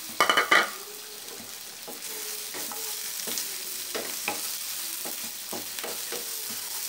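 Spices (shallots, garlic, lemongrass, bay leaves and galangal) sizzling in hot oil in a nonstick frying pan, stirred with a wooden spatula that scrapes and taps against the pan. The aromatics are being sautéed until fragrant. There is a brief louder burst right at the start, then a steady sizzle with scattered scrapes.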